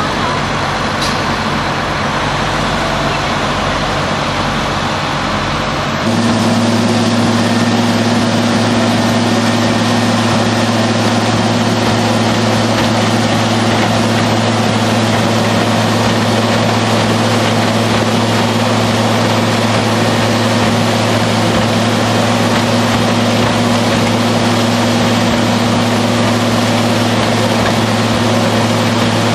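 Diesel engine of a Hammel mobile shredder running steadily. About six seconds in the sound jumps to a slightly louder, steady low hum.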